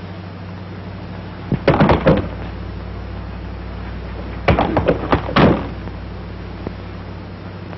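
Two quick runs of heavy thumps, several blows each, about three seconds apart, over a steady low hum.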